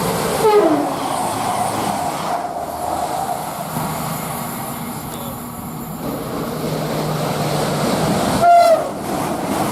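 A passing train: steady rumble of wheels on the rails, with a falling tone just after the start and a short, loud horn blast about eight and a half seconds in.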